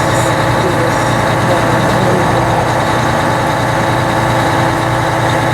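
Fire truck's engine idling steadily: an even, unbroken low running sound with a constant hum.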